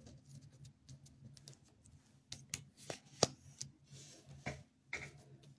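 Tarot cards being shuffled and handled: a run of light, irregular clicks and snaps over a faint steady low hum.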